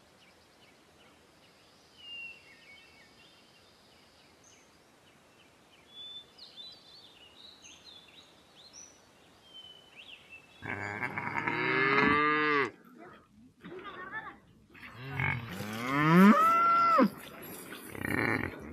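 Cattle mooing: several long calls starting about ten seconds in, the loudest one near the end rising in pitch. Faint bird chirps come before them.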